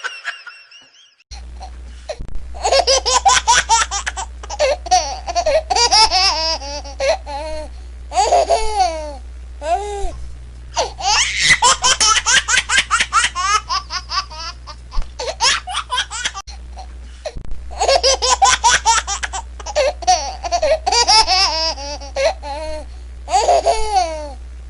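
Laughter sound effect: a high-pitched voice laughing hard in long fits of rapid ha-ha pulses with brief pauses between them, over a steady low hum.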